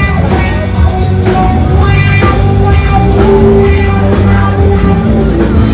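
Loud rock music with held notes and possibly singing.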